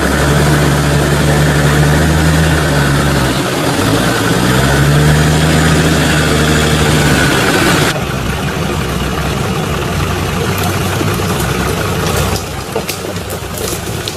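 Off-road 4x4's engine running, its pitch dipping and climbing back again a few seconds in. About eight seconds in the sound changes abruptly to a quieter, rougher engine noise, with scattered clicks near the end.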